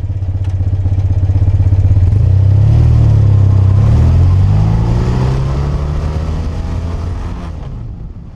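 BMW R100R's air-cooled flat-twin boxer engine running and accelerating, its pitch rising through the middle, then dying away near the end.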